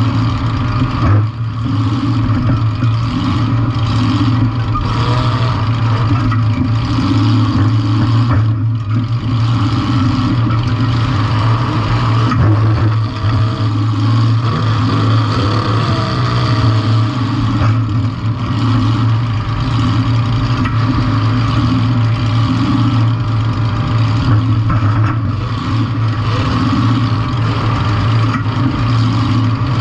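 Compact demolition derby car's engine running loud and steady.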